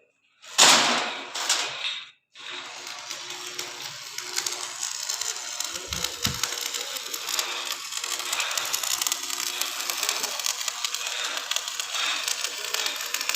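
Electric arc welding: a steady crackling sizzle of the arc, made of many fine rapid clicks. It is preceded by a loud noisy burst lasting about two seconds.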